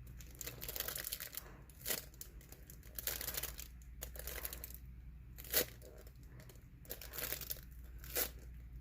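Irregular crinkling and crackling from hands handling and squeezing a homemade foam squishy toy close to the microphone, with scattered small clicks.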